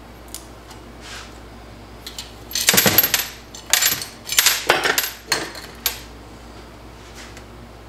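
Metal parts clattering and clinking in several bursts, some with a high metallic ring, as the halves of a TH350 automatic transmission's front oil pump and hand tools are handled and set down on a workbench.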